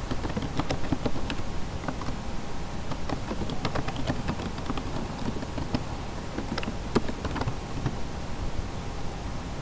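Computer keyboard keys clicking irregularly as a password is typed, several keystrokes a second, thinning out near the end.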